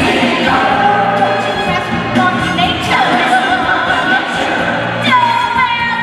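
A song from a stage musical: singing voices holding long, sliding notes over a full backing track.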